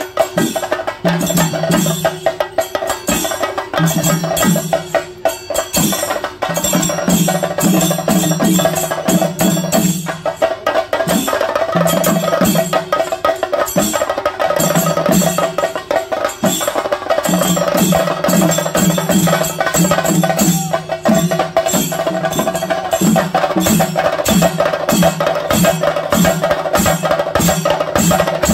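Chenda drums beaten fast with sticks in theyyam drumming: dense, sharp strokes in a continuous driving rhythm, with a steady held tone beneath.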